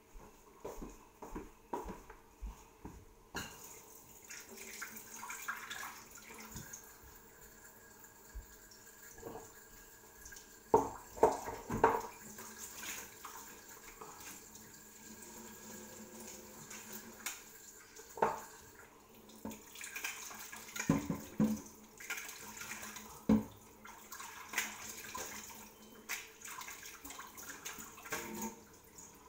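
Water running from a tap, starting about three seconds in, with scattered knocks and clinks of things being handled in or around the sink.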